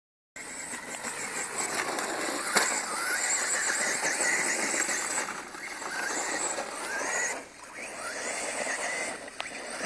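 ECX Torment RC short-course truck's 4000kv brushless motor whining, its pitch rising again and again as the throttle is pushed and falling as it lets off, over a steady hiss. A sharp click about two and a half seconds in.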